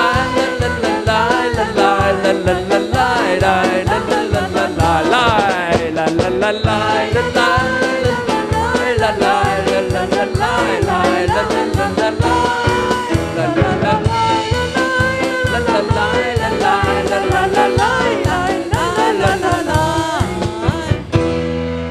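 Live worship band playing an upbeat song with voices singing the melody over a steady drum beat; the music winds down and ends near the end.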